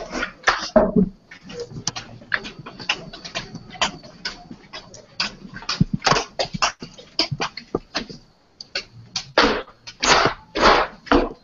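Computer keyboard and mouse clicking: irregular sharp taps, several a second, with a few longer rustling bursts near the end.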